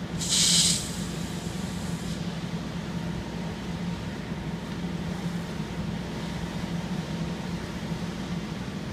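Steady low hum of idling vehicle engines, with a short loud hiss about half a second in that fades away over the next second or so.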